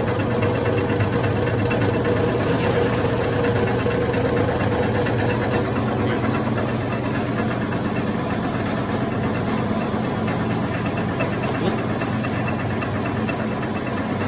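Electric commercial bread slicer running, its motor driving the frame of vertical serrated blades back and forth with a steady mechanical hum and vibration.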